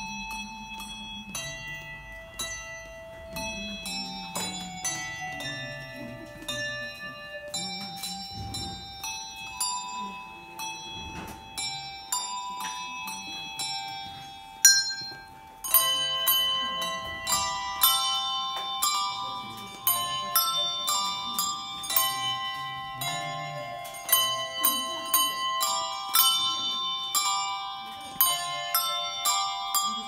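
A handbell choir playing a tune on tuned handbells, each bell struck and left ringing on as the melody moves from bell to bell. About halfway through the playing gets louder, with several bells sounding together in chords.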